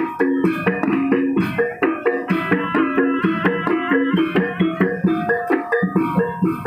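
Javanese gamelan music accompanying a barongan dance: metal keyed instruments and gongs ring out struck notes over drums at a fast, even beat.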